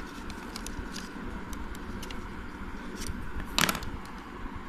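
Small plastic clicks and ticks, then one louder scraping crackle about three and a half seconds in, as a knife-like blade pries at the sealed plastic seam of a Huawei Bluetooth device's case.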